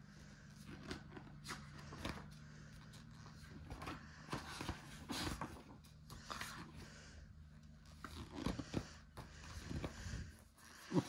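Pages of a large hardcover picture book being turned and smoothed down by hand: a string of irregular paper rustles and swishes, over a faint steady low hum.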